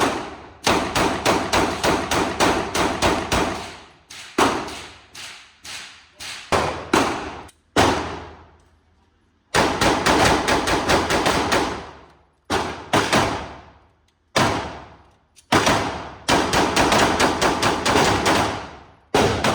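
Fireworks going off in rapid runs of sharp bangs, several a second, each run fading away before a short pause and the next run.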